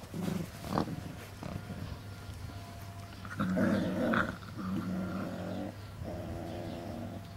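Forty-day-old Cane Corso puppies growling in play: a couple of short sounds about a second in, then a run of sustained growls from about halfway, broken by brief pauses.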